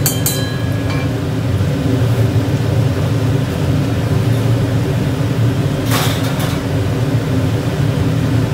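Steady low motor hum with several pitched lines, and a short rasping burst about six seconds in.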